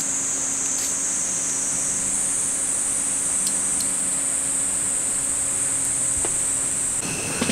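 Steady high-pitched insect drone, such as crickets or cicadas, with a few faint light clicks as collapsible metal-jointed chopsticks are screwed together.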